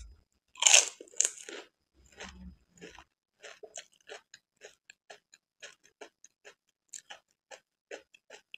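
A pani puri eaten close to the microphone. Two loud crunches about a second in as the crisp, hollow puri shell breaks, then steady chewing with many small clicks and mouth smacks.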